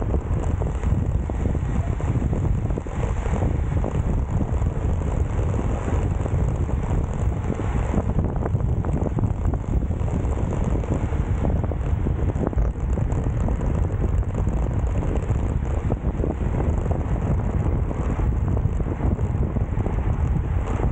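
Steady wind rushing over the microphone of an action camera carried on a road bike at racing speed, with low rumbling buffets.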